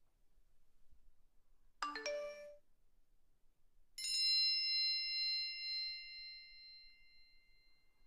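A short chime of three quickly rising notes. About two seconds later comes a single high bell ding that rings on and fades over about four seconds.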